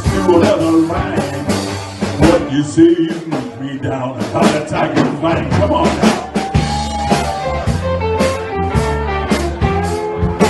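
Live blues band playing: electric guitar, bass guitar and drum kit, with a male singer's vocal over them.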